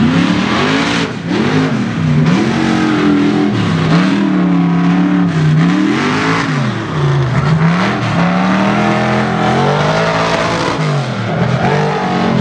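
Engine of a lifted Chevy Tahoe mud truck on oversized tires, revving hard. Its pitch rises and falls again and again as the throttle is worked over the course's bumps and dips.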